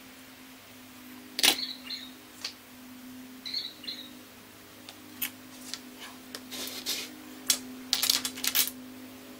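Scattered clicks and taps from small hand tools handled at a workbench: scissors trimming a shoelace and a CA glue bottle. There are a few short high squeaks over a steady low hum. The sharpest click comes about one and a half seconds in, and a quick run of clicks comes near the end.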